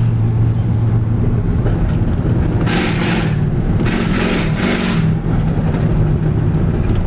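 Four-wheel drive pickup truck's engine running steadily at low speed while driving over a rough dirt road, with two short rushes of noise about three and four seconds in.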